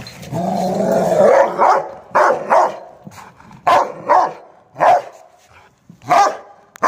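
Rottweiler barking while tied on its leash: one long drawn-out call, then a string of short loud barks about a second apart. A dog that goes mad at being tied up.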